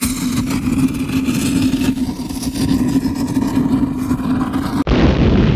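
Intro sound effect for a sparking countdown animation: a loud, steady fizzing hiss over a low hum, cut off about five seconds in by a sudden deep boom that rumbles on.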